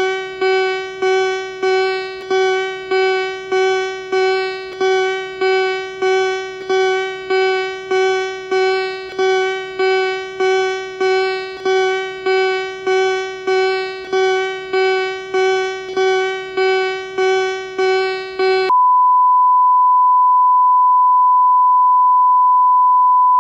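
Emergency alert alarm tones: a harsh pulsed electronic tone repeating about three times every two seconds, each pulse starting sharply and fading. Near the end it switches abruptly to one steady high-pitched beep tone that carries on.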